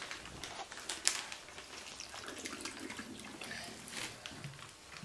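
Vinegar poured from a small cup through a plastic funnel into a bottle of baking soda: a faint trickle with a few light clicks.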